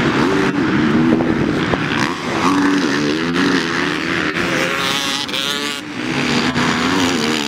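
Racing motorcycle engines revving up and down as the bikes race around the track. About five seconds in, one bike revs sharply up and back down, louder and closer than the rest.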